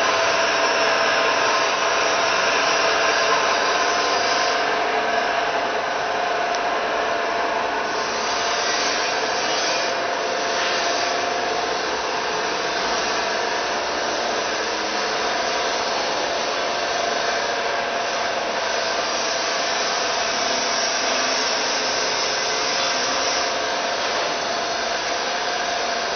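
Rib plough mixer running: its electric motor and gearbox give a steady whirring hum with a faint constant whine over a rushing hiss.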